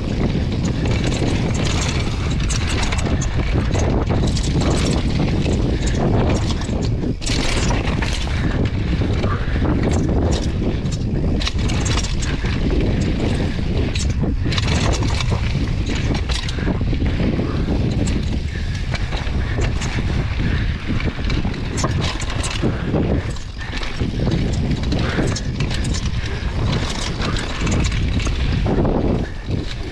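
Downhill mountain bike riding fast over a rough dirt trail: wind buffeting the microphone and tyres rumbling over dirt and rocks, with frequent sharp knocks and rattles from the bike.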